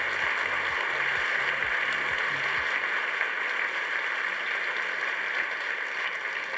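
Audience applauding, a steady dense clapping that begins to thin out near the end.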